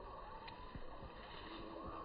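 Faint, steady outdoor background noise, a low hum of distant ambience with a few soft, indistinct tones and a light click about half a second in. The perched kingfisher makes no clearly audible call.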